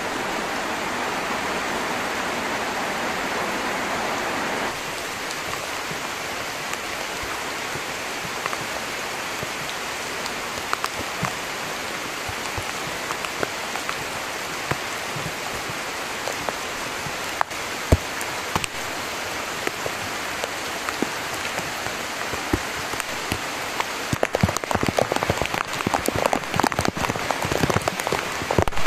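Heavy tropical rain falling as a dense, steady hiss. About five seconds in, the hiss drops a little. Near the end, many large drops patter loudly close by.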